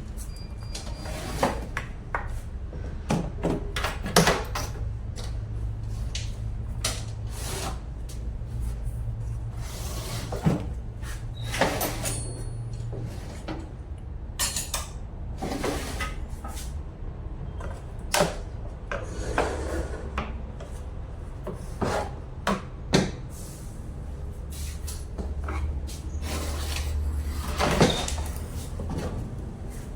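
Scattered clanks, knocks and rattles of tools and metal parts being handled during work on a truck's air-conditioning compressor, over a steady low hum.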